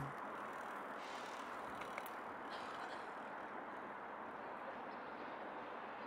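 Steady faint hiss of outdoor ambience, with a small click about two seconds in.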